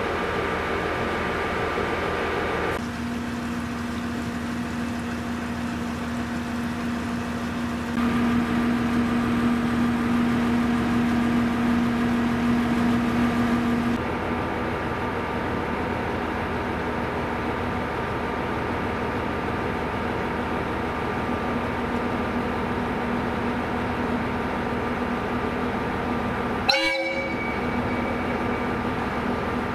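JR KiHa E130 diesel railcar idling at a station platform: a steady engine hum with held tones. A brief sharp sound comes near the end.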